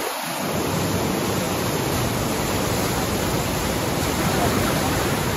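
Bhange Jharna, a tall waterfall, pouring down: a steady, loud rushing noise of falling water.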